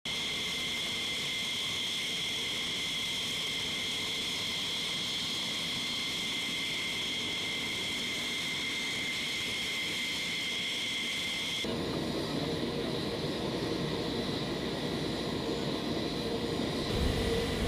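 Steady high-pitched jet-turbine whine on an F-15 flight line, holding two high tones. About twelve seconds in it cuts abruptly to a lower, rougher engine rumble.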